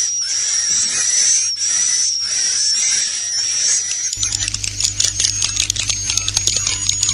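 Swiftlet roosting ('inap') call recording, the kind played inside swiftlet houses to draw birds in to roost: a high-pitched buzzing twitter pulsing about twice a second, changing about four seconds in to rapid clicking chirps over a low hum.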